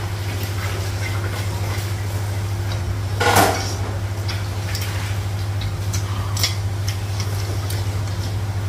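Spoons and serving utensils clinking and scraping against metal pots and bowls during a meal, with one louder clatter about three seconds in. A steady low hum runs underneath.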